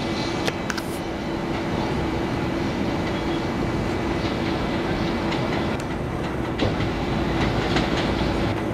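R142A subway train approaching slowly: a steady rumble and hum, with sharp wheel clicks over the rail joints scattered throughout.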